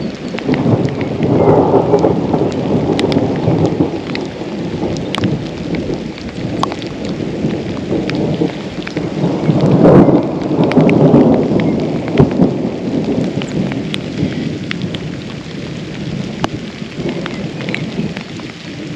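Thunder rolling in long rumbles that swell twice, about a second in and again around halfway through, with scattered sharp ticks of raindrops falling close by.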